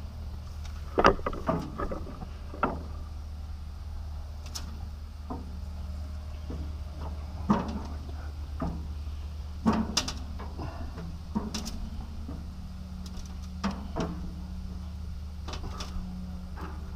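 Raw chicken wings being laid one by one on the metal grates of a lit gas grill: scattered light clicks and knocks, the loudest about a second in, over a steady low rumble.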